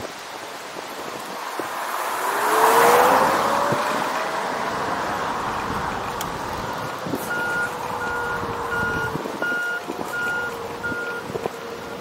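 Road vehicle sounds: a vehicle swells past with a rising whine that settles into a steady hum. From about seven seconds in, a run of evenly spaced electronic beeps, about two a second, sounds for several seconds.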